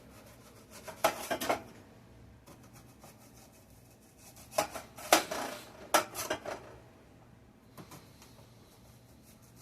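Dishes and cutlery being handled, clinking and knocking in a few short clusters about a second in and again around the middle.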